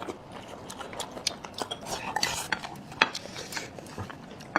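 Scattered light clicks and clinks of chopsticks and tableware against bowls and plates.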